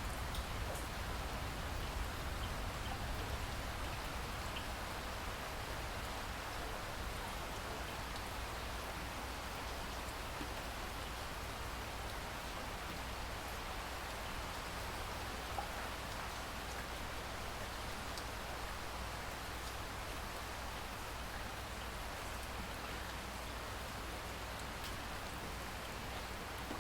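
Steady rain falling: an even hiss with scattered faint drop ticks, and a low rumble that eases off over the first few seconds.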